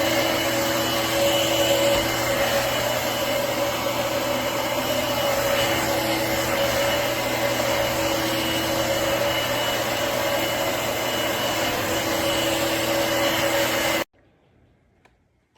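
Shark Navigator Freestyle cordless stick vacuum running steadily, a loud, even whoosh with a hum and a high whine, then cutting off abruptly near the end.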